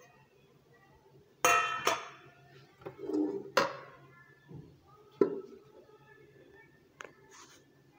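Stainless steel plate and bowl knocking and clanking against each other and the stone counter as they are handled, each knock ringing briefly. About five knocks, the loudest about a second and a half in.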